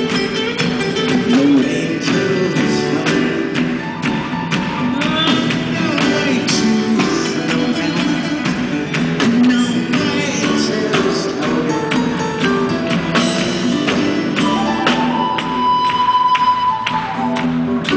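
Live rock band playing an instrumental passage: guitar and bass guitar over a steady drum beat. About three-quarters of the way through, a flute comes in with a long held high note.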